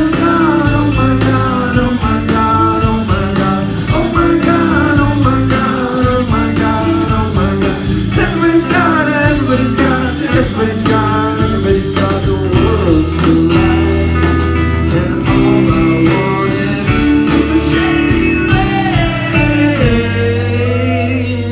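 Live rock band playing an instrumental passage: electric guitar lines over bass and drums, loud and steady, recorded from the audience in a small club.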